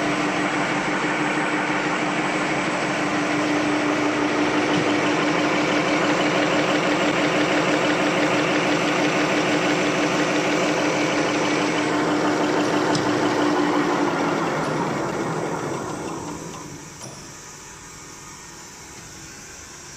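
Napkin paper folding machine running with a steady mechanical hum and a fast pulsing rhythm, then running down over a couple of seconds about three quarters of the way through as it is stopped at its control panel, leaving a much quieter background hum.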